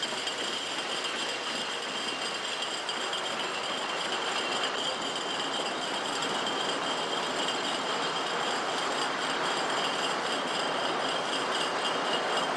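Beer bottling line running: glass bottles rattling and clinking along a conveyor over a steady machine din with a thin high whine, slowly growing a little louder.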